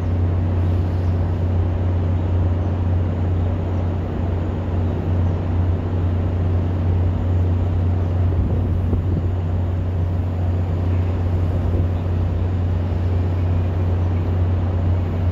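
Diesel locomotive of a Sound Transit Sounder commuter train idling: a steady low drone.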